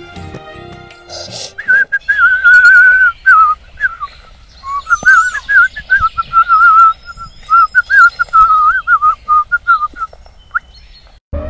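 A man whistling a tune: one loud, pure, wavering tone that rises and falls in short phrases, with faint birdsong behind. The whistling stops about ten seconds in, and music comes in sharply right at the end.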